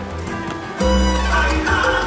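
Salsa music playing. The low bass drops out briefly and comes back in strongly just under a second in.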